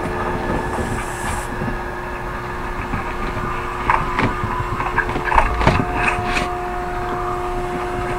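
Steady mechanical hum with a constant tone, a second higher tone joining about five and a half seconds in. A few knocks and thumps, likely from large cardboard boxes being handled, fall between about four and six and a half seconds in.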